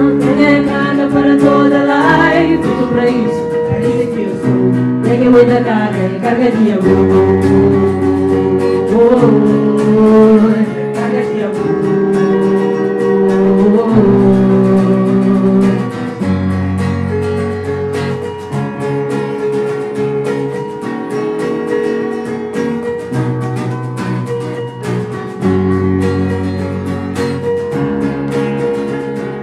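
Live band music: acoustic guitar and keyboard playing, with singing.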